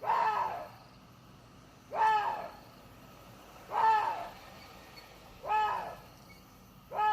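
Water deer calling: five short barking calls, evenly spaced about every two seconds, each lasting about half a second and rising then falling in pitch. The last call begins right at the end.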